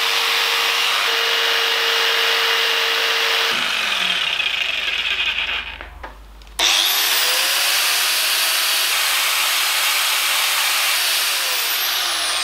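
A 550-watt electric jigsaw running steadily on the inverter's power, then switched off so that its motor whine falls away. After a brief lull, an angle grinder starts with a rising whine, runs, and is switched off near the end, winding down.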